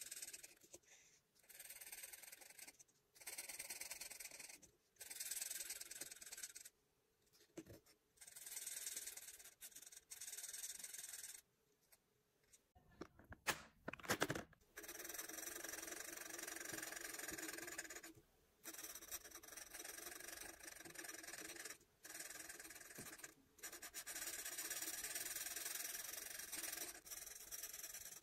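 Alcohol marker's broad tip scratching across paper in repeated strokes, each a second or two long with short pauses between. About halfway through come a few loud, sharp clicks, after which the strokes run longer and closer together.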